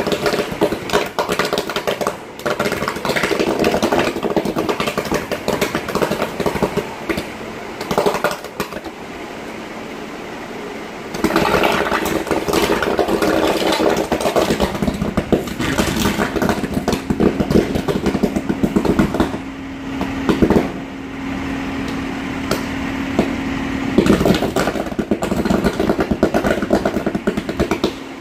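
Manhole fire, underground electrical cables burning and jetting flame with a rough, continuous sputtering and crackling.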